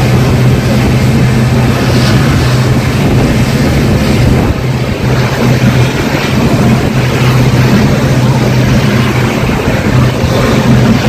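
Moving passenger train heard from on board the Mumbai–Nagercoil Express: a loud, steady running noise of the coaches on the rails, with a constant low hum beneath it.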